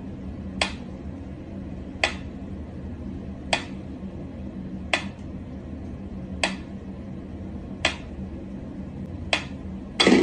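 Sharp clicks repeating evenly, about one every one and a half seconds, over a low steady hum.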